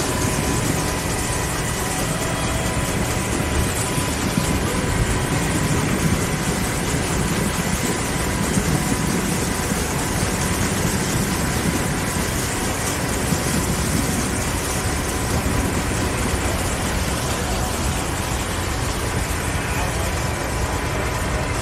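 Steady din of engines and machinery running, with a faint steady whine, and people talking in the background.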